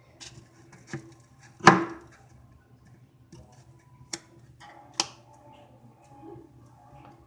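A few sharp knocks and clicks of a utensil against a container as slime is mixed, the loudest a little under two seconds in. A faint steady tone comes in around the middle.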